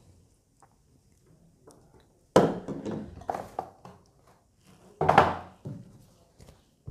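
Hard thunks and knocks of unboxed gear being handled and set down, a cluster of several starting about two seconds in and another single heavy knock a couple of seconds later.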